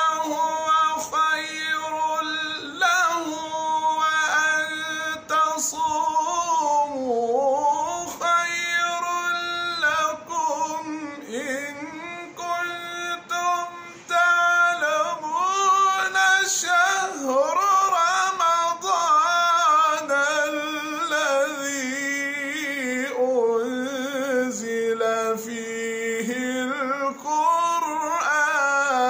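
A man reciting the Quran in the melodic mujawwad style, unaccompanied, drawing out long held notes with wavering ornaments and sliding pitch, with a few short breaths between phrases.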